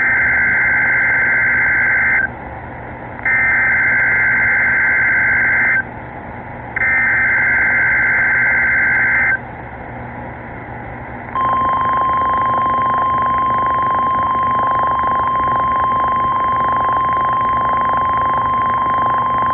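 NOAA Weather Radio Emergency Alert System test signal through a weather radio receiver: three bursts of digital SAME header tones, each about two and a half seconds long with short gaps between. About eleven seconds in, the long steady single-pitch warning alarm tone starts and holds, all over constant radio static.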